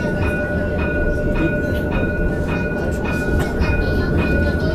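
CAF light-rail tram running along street track, heard from the cab: a steady low rumble with a constant high-pitched whine and light clicks a few times a second.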